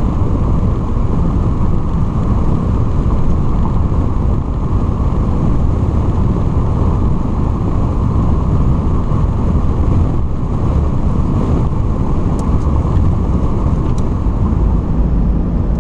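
Steady road and engine noise inside a moving car's cabin, a low rumble with a couple of faint ticks near the end.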